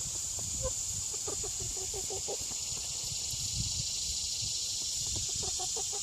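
Chickens clucking in short runs of calls, over a steady high-pitched hiss.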